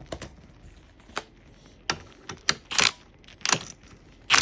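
Irregular sharp metal clicks and clinks of a hand tool working the T50 Torx bolt on a car seat's floor bracket, with a few louder rasping strokes in the second half.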